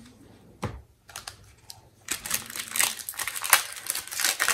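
Foil Pokémon booster pack wrapper being crinkled and torn open: a dense run of crackles starting about two seconds in, after a single tap near the start.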